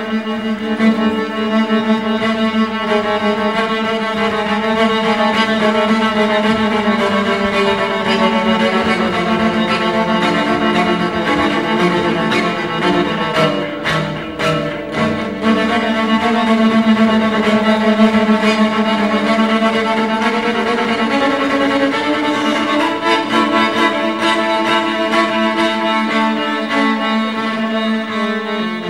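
Slow music of sustained notes over a steady low drone, accompanying a dance piece.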